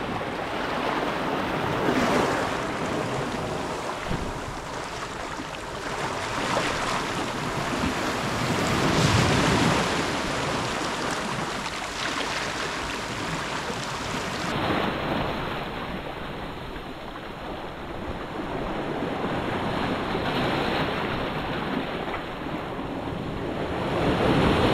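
Sea surf washing in over rocks and around a wader's legs, a steady rush of breaking water that swells and eases every few seconds.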